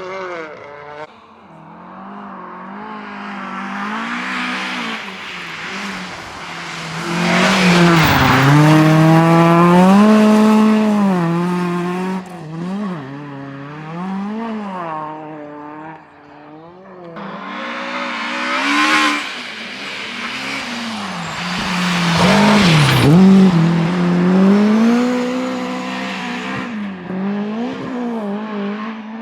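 Rally cars passing at speed on a special stage, engines revving up and down as the drivers lift off and accelerate through the corner. Two cars go by: the first is loudest about eight seconds in and the second about twenty-three seconds in, each with a sharp drop in pitch as it passes.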